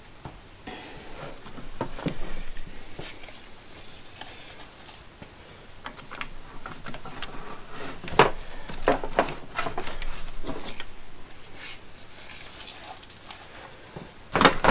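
Nylon straps being stuffed into a fabric storage bag: irregular rustling with scattered clicks and knocks, the sharpest about eight seconds in and near the end.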